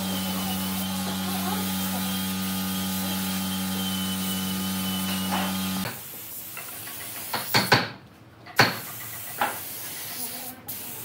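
A workshop machine's electric motor running with a steady hum, stopping suddenly about six seconds in. A few sharp knocks follow.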